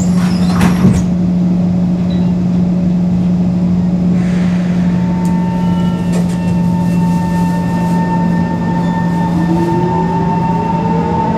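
Singapore MRT train heard from inside the carriage, pulling away from the station. A couple of knocks come in the first second as the doors settle shut, over a steady low hum. From about five seconds in, the traction motors' whine sets in, with tones rising in pitch near the end as the train picks up speed.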